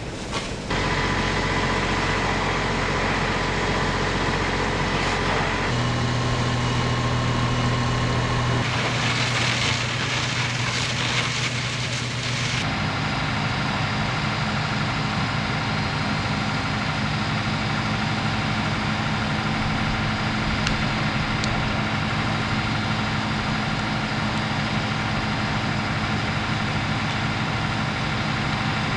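Heavy vehicle engines idling steadily with a low hum, the sound changing abruptly several times in the first half.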